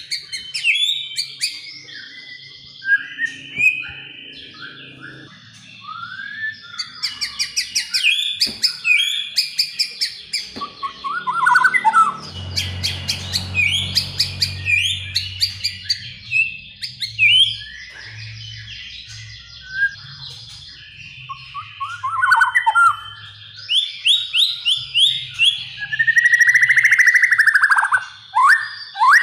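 White-rumped shama singing a long, varied song: loud whistled phrases, rapid rattling trills and sliding notes, with short gaps between phrases.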